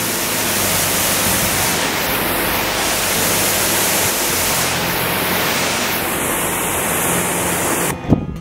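Briggs & Stratton 2000 PSI electric pressure washer spraying a jet of water onto asphalt: a loud, steady hiss that cuts off suddenly near the end.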